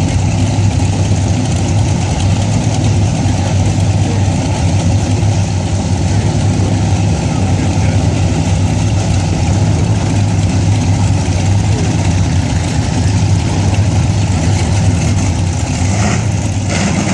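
Large engine idling steadily, a low, even rumble with no change in pitch. A few short sharp sounds come near the end.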